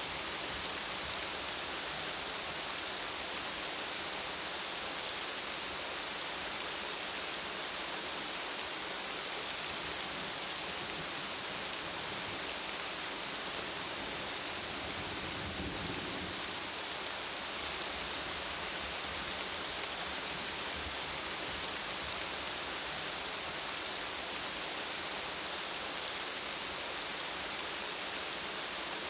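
Steady heavy rain falling, an even hiss with a brief low rumble about halfway through.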